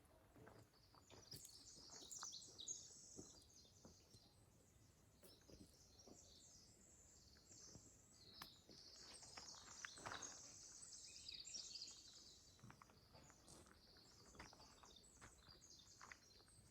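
Quiet forest with faint, high-pitched bird chirps coming and going, and occasional soft footsteps on the trail.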